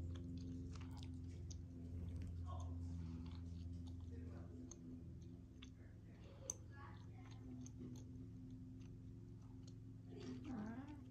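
Faint soft rustling and small clicks of a cat rolling and rubbing its back in catnip, over a steady low hum, with one sharper click about six and a half seconds in.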